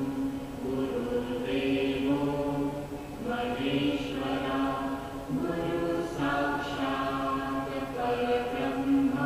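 Background music of voices chanting in long held notes that step from pitch to pitch.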